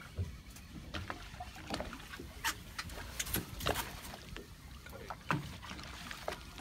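Water slapping and lapping against the side of a small fishing boat, in irregular sharp splashes and ticks over a steady low rumble.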